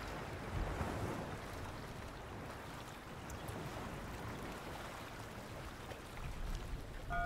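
Wind and ocean surf at the shore: a steady rushing noise, with low wind rumble on the microphone. A steady pitched tone comes in at the very end.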